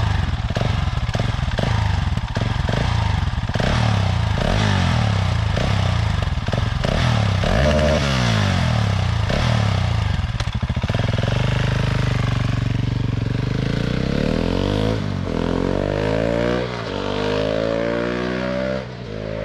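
KTM 690 SMC R single-cylinder engine through an Arrow exhaust with the dB-killer fitted, revved up and down about ten times in quick succession. Then it pulls away with the pitch rising in several steps, fading toward the end.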